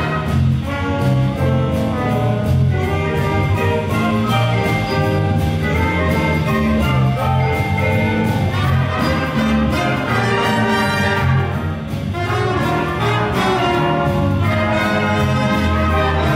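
Concert wind band playing a swing jazz arrangement: clarinets, trumpets, trombones and flutes in full ensemble over a steady beat.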